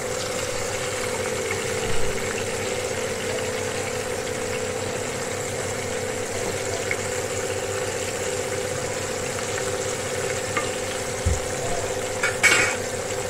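Flour-coated fish pieces deep-frying in a pan of hot oil, with a steady sizzle. There are a few short knocks from a spatula turning the pieces, the loudest near the end.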